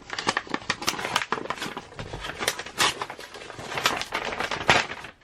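Hands rummaging through and handling packaged merchandise: a dense run of irregular clicks, taps and rustling from plastic and paper packaging.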